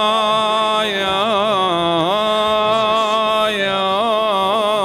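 A man's voice chanting a Yazidi religious hymn in long held notes, with wavering ornamented turns about a second in and again near the end.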